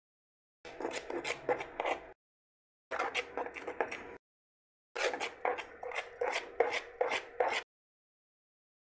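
Thick cream-and-powder batter being stirred by hand in a metal bowl, the utensil scraping and tapping against the bowl in quick strokes. It comes in three bursts, the last and longest ending a little before the end.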